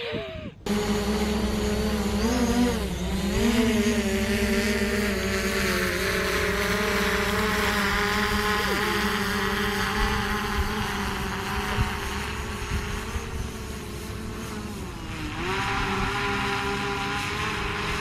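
DJI Mavic Pro quadcopter's propellers buzzing in flight, on a test flight after a crash. The buzz starts suddenly about half a second in, and its pitch dips and recovers twice, once about three seconds in and again near the end.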